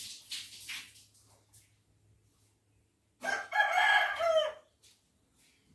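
A rooster crowing once, about three seconds in: one loud call of about a second and a half that drops in pitch at the end. A few soft scuffing sounds come in the first second.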